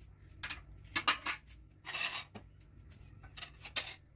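A small kitchen knife scraping and cutting an onion by hand, its papery skin crackling: a few short separate scrapes and one longer rustle about two seconds in.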